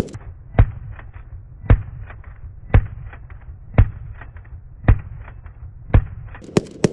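AK-47 rifle firing 7.62×39 rounds, single shots about one a second, six in a row, then two quicker shots near the end.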